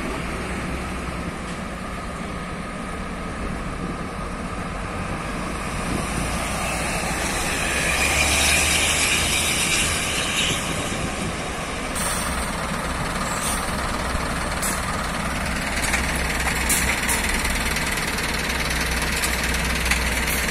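Scania heavy-haul truck's diesel engine running at low speed as it slowly pulls a multi-axle lowbed trailer past, growing louder about eight seconds in as it draws close.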